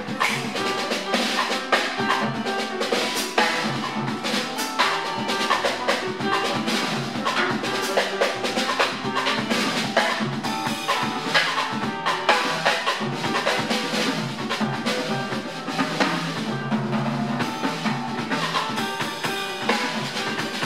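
Live jazz with a Sonor drum kit to the fore, snare, bass drum and rimshots struck busily, over piano and upright double bass.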